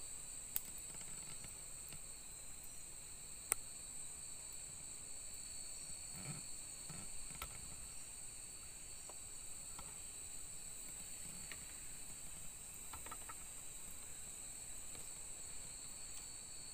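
Night insects trilling steadily in two high, unbroken tones. Two sharp clicks cut through in the first few seconds, and a few soft knocks come midway.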